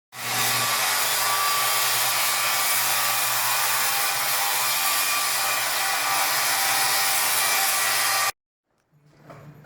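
A small electric motor whining steadily over a loud rush of noise for about eight seconds, starting and cutting off abruptly.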